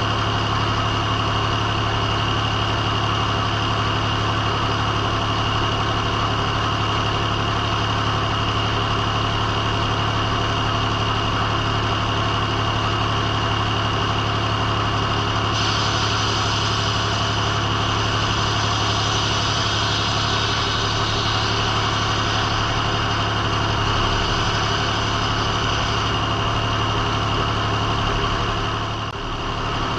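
Engine driving a circle sawmill, running steadily with a high ringing tone over its hum. A higher hiss joins about halfway through and stops a few seconds before a brief dip in loudness near the end.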